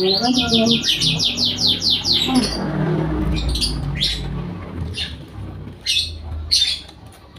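A bird trilling, a fast run of rising high chirps for the first two seconds or so, then a few single chirps. A low rumble runs underneath in the middle.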